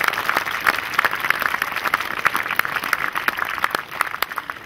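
Audience applauding at the end of a song, a dense patter of clapping that thins out near the end.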